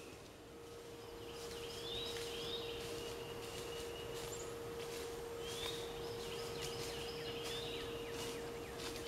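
Woodland songbirds calling, repeated rising chirps in two short runs, over a steady hum. Faint crunches of footsteps in dry leaf litter are mixed in.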